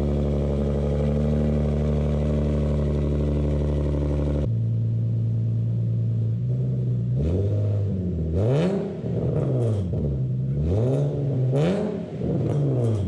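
Infiniti G37's 3.7-litre V6 running through a freshly fitted HBP v2 single-exit exhaust: it holds a steady fast idle, drops abruptly to a lower idle about four seconds in, then is revved up and back down three times.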